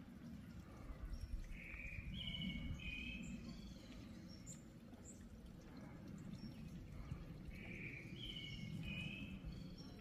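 A songbird sings a short phrase of warbled notes twice, about six seconds apart, with faint high chirps from other birds, over a steady low rumble of wind.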